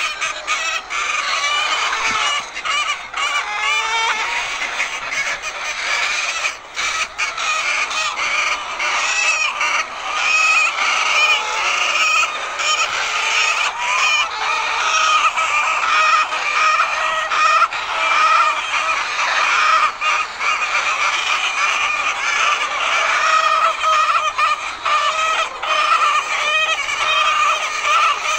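Many laying hens clucking and calling at once, a dense, continuous chorus of overlapping calls.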